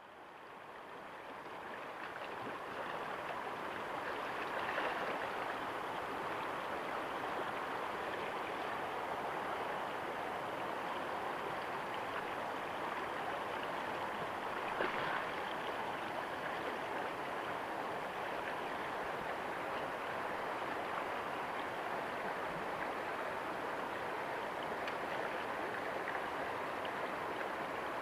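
Fast river current rushing, a steady noise of flowing water that fades in over the first few seconds and then holds level.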